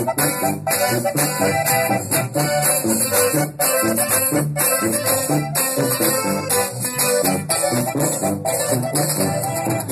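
Cumbia music playing without singing, with a steady, even beat and shaker-like percussion.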